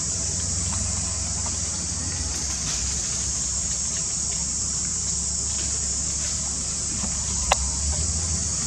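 Steady high-pitched insect chorus droning without a break, over a low rumble, with a single sharp click near the end.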